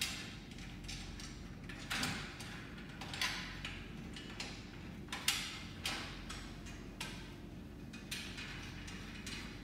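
Irregular metallic clicks and short scrapes, roughly one a second, from hand-tool work on the aluminum shelf frame while the reagent shelf is being fastened.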